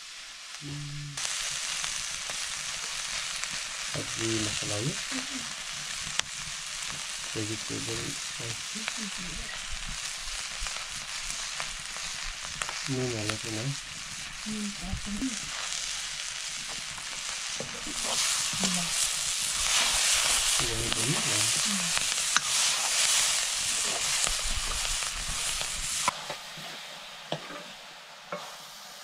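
Chopped cabbage frying in a black iron wok over a wood fire: a steady sizzle with stirring, growing louder about two thirds of the way through and cutting off suddenly a few seconds before the end.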